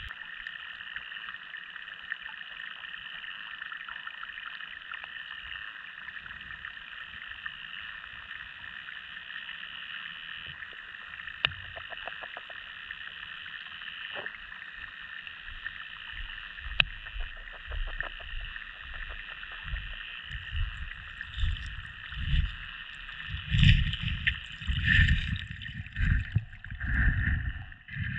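Sound recorded underwater by a GoPro in its waterproof housing: a steady muffled hiss with a few faint clicks. About three quarters of the way in come loud, uneven low sloshing and gurgling surges of water against the housing.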